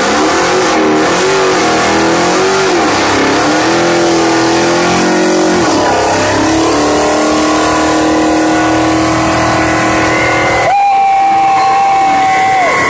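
Dodge Challenger SRT Demon's supercharged V8 held at high revs through a burnout, its rear tyres spinning. The pitch climbs at the start, dips briefly about halfway through, then holds, and steps up to a higher steady note for the last couple of seconds.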